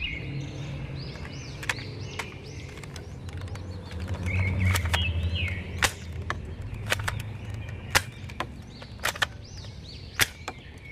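Toy AK-47 blaster firing single shots, heard as a string of sharp clicks at irregular gaps, about one a second. Birds chirp in the background.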